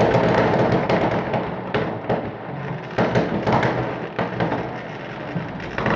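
Fireworks going off in a courtyard among high-rise blocks: a series of heavy bangs about a second apart, each followed by a long echo off the surrounding buildings.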